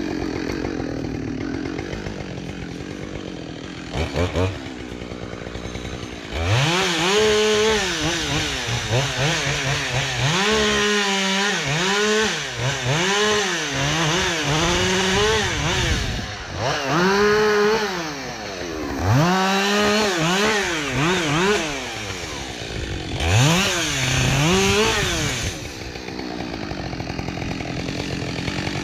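Husqvarna 572XP two-stroke chainsaw idling, then revved over and over in several clusters, its pitch rising and sagging with each pull of the throttle, before settling back to idle near the end.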